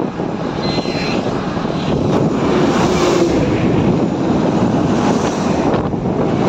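Steady engine, tyre and wind noise of a small goods pickup driving at speed on a highway, heard from inside the cab with the side window open.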